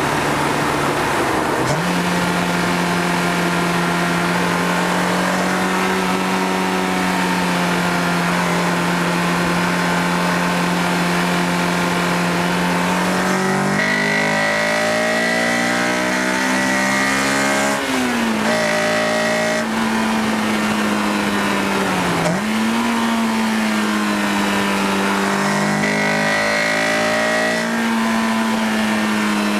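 A 2002 Honda S2000's 2.0-litre F20C four-cylinder engine running. It holds a steady pitch at first, then climbs, and twice drops sharply in pitch before rising again.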